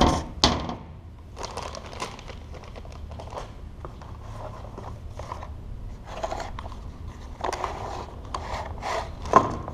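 A metal mounting plate is set down with two sharp knocks, about half a second apart. After that comes a run of irregular rustling and crinkling of cardboard and packing paper as hands dig through a cardboard box, with a sharper knock near the end.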